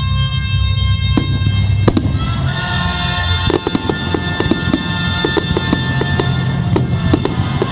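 Fireworks going off in a rapid run of sharp bangs and crackles, starting about a second in and growing thick from about the middle, over loud film-theme music.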